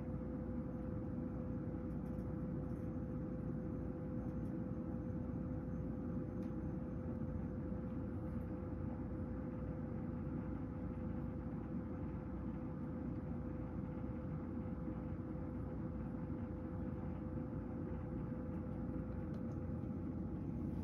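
Steady hum of a room fan heater running, with a constant tone over a low whirr and a few faint ticks.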